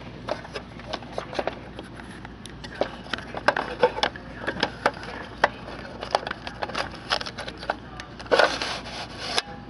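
Clicks, knocks and scraping from a vending machine's plastic bill validator cash box being handled and emptied of paper bills, with a denser rustle near the end.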